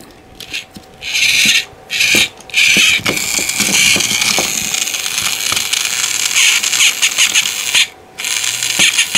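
Plarail Toby toy train's battery gear motor running with the engine upside down, its gearbox whirring loudly as the wheels spin free. It starts about a second in, cuts out briefly twice soon after, and again near the end.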